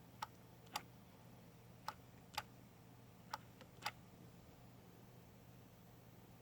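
Speaker of a malfunctioning DoorBird D101 video doorbell giving three pairs of sharp clicks, the clicks in each pair about half a second apart. This cracking sound is the unit's only sign of life: the device has failed.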